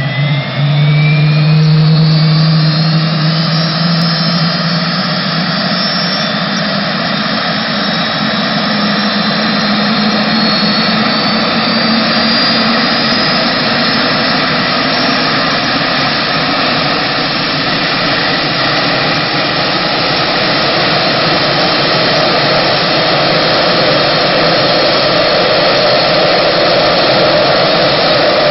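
Rolls-Royce Allison 250-C18 gas turbine of a jet turbine motorbike spooling up, its whine rising steadily in pitch over the first dozen seconds, then running steadily with a loud rushing jet noise.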